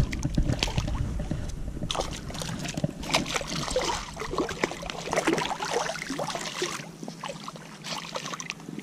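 Hooked black drum splashing and thrashing at the water's surface as it is played in close, in irregular splashes that ease off a little near the end.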